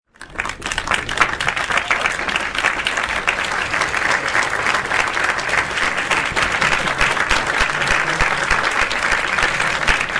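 Large crowd applauding: dense, steady clapping that fades in over the first half second.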